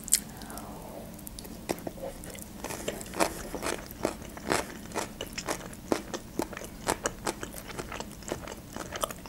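Chewing a mouthful of sushi roll: a string of irregular soft crunches and wet clicks.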